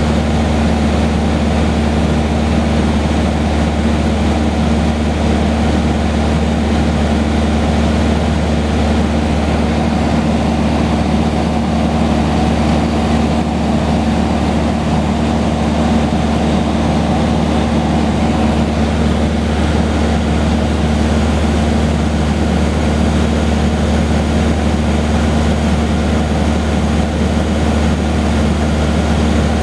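Cessna 150H's four-cylinder Continental O-200 engine and propeller running steadily in flight, heard as a constant low drone from inside the small cabin.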